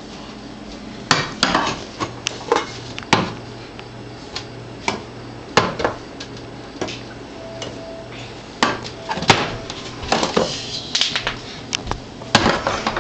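Food cans clanking and knocking against each other and the cupboard shelf as a toddler moves them around, in irregular clusters of sharp clatters.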